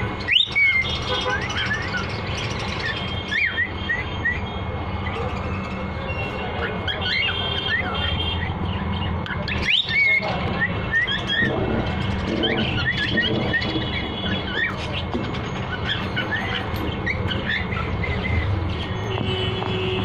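Cockatiels chirping: many short, rising chirps in quick succession, over a steady low hum.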